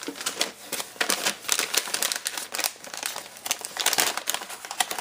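Gift wrapping crinkling as it is handled and opened: a dense, irregular run of crackles.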